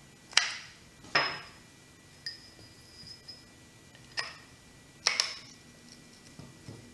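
Anodized aluminium side panels of a 4x5 sheet-film carrier snapping onto the film gate, pulled in by strong neodymium magnets: a series of about six sharp metallic clicks, a couple with a brief high ring.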